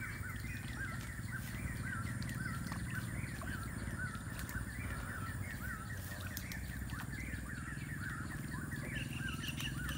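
An outdoor animal chorus of short, wavering chirps repeating about twice a second, over a low steady hum. Higher-pitched chirps join in about nine seconds in.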